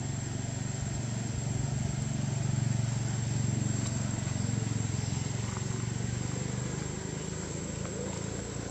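A low, steady motor rumble, swelling slightly a couple of seconds in and then easing off.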